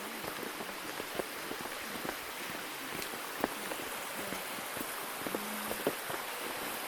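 Mountain stream flowing, a steady rush of water, with scattered light clicks of footsteps on the rocky trail.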